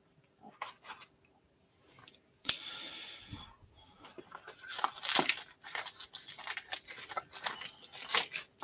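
Plastic shrink wrap on a cardboard card box being slit with a pocket knife and then torn off by hand: a few light clicks, a sharp click about two and a half seconds in, then a run of crinkling and tearing of the cellophane through the last few seconds.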